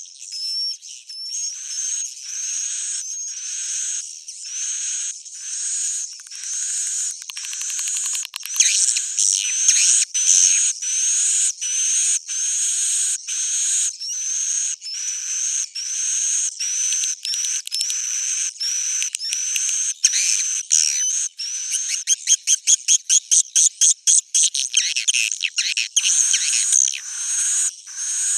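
Swiftlet calls from a looping swiftlet-house lure recording: a long series of high, chirping twitters with rising sweeps, denser toward the middle, turning into fast rattling trills of several pulses a second in the last few seconds.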